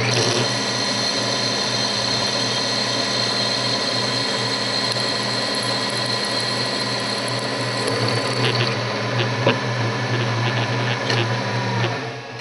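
Milling machine spindle running as a twist drill cuts a hole into a small clamp block, a steady machine hum with a few light clicks late on; the sound falls away near the end as the drill comes out of the hole.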